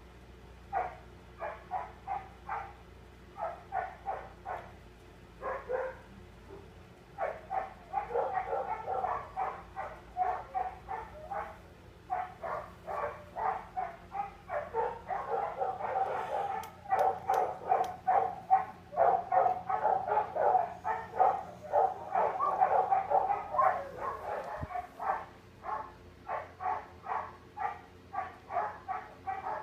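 A dog barking over and over, about three short barks a second, in runs broken by brief pauses; through the middle the barks come thicker and louder.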